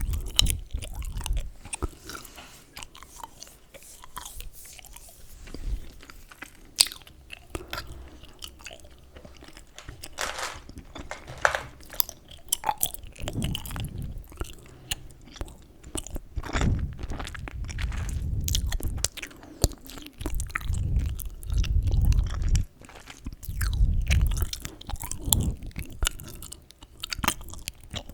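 Close-miked chewing gum: wet, sticky smacks and clicks of the mouth and jaw, irregular and continuous, with heavier low thumps of the jaw in the second half.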